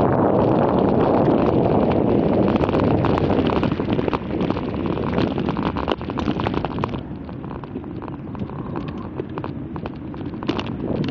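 Wind buffeting the microphone of a camera on a moving bicycle: a loud, low rushing noise that eases about seven seconds in, with scattered sharp clicks and rattles throughout.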